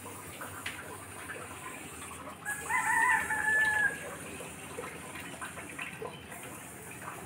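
A rooster crowing once: a single drawn-out, even-pitched call lasting about a second and a half, starting a few seconds in and dipping at its end. Otherwise only a low background with a few faint handling clicks.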